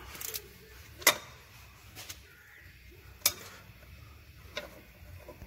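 A few sharp metallic clicks and knocks as a ratchet with a hex bit is fitted to and worked on the ABS sensor bolt at the front hub carrier. The loudest click comes about a second in, another just past three seconds.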